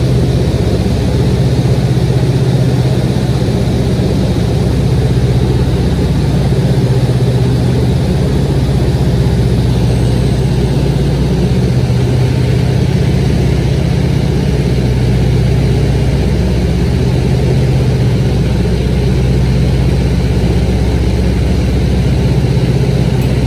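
Light airplane's engine and propeller droning steadily in cruise, heard from inside the cabin with a steady rush of air behind it.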